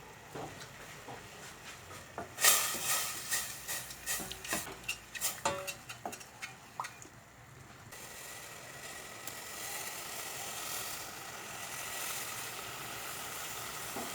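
A run of sharp clinks and knocks for a few seconds, then a steady sizzle of vinegar and honey heating in a pan for the rest.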